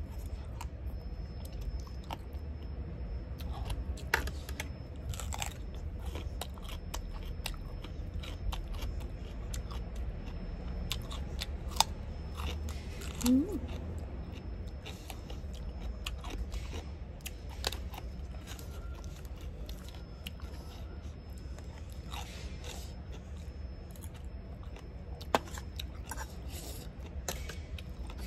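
Close-up chewing of spicy rice-noodle salad with pork ear and raw radish: wet mastication with short, crisp crunches scattered throughout. A brief rising vocal sound comes about halfway through.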